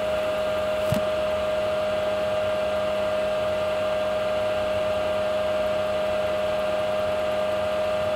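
Steady machine hum: an even drone with one constant whine over it, unchanged throughout.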